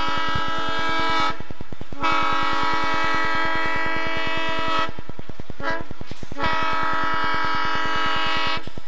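Train air horn sounding the long-long-short-long grade-crossing signal: the first blast ends about a second in, then a long blast, a short one and a final long one. A fast, steady low pulsing runs underneath.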